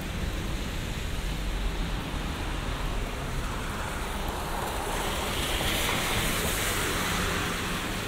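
Steady hiss of rain and a wet city street heard from under an umbrella, with a louder swell of tyre hiss from traffic on wet asphalt in the second half.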